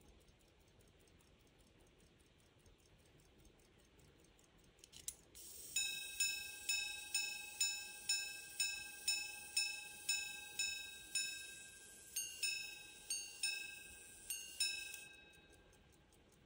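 Quarter-repeating pocket watch striking the time: faint ticking of the movement, a couple of clicks, then a long run of evenly spaced single strikes on one gong for the hours, followed by three two-note ding-dong pairs for the quarters. Each strike rings out and fades before the next.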